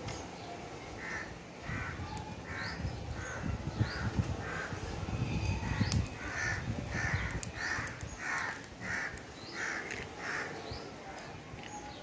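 A crow cawing over and over, about fifteen calls in a steady run of roughly one every half second or so, stopping near the end, with an occasional crackle from the burning pile of dry leaves.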